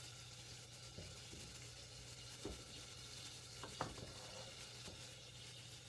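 Faint stirring of cooked khichuri in a pot, with a few soft spoon knocks, over a low steady hiss.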